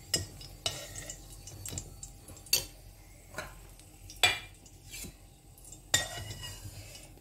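Metal spatula scraping and clinking against a metal kadhai as fried raisins are scooped out of the oil, in scattered separate strokes about once a second, the loudest about four seconds in.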